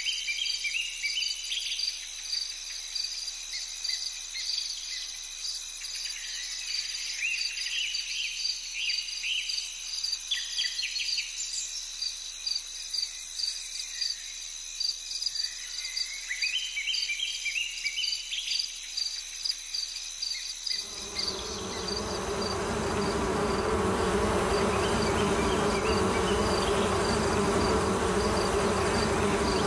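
Insects chirring: a steady, rapidly pulsing high chirr with scattered clusters of short rising chirps. About 21 seconds in, a loud, close buzzing insect sets in and carries on.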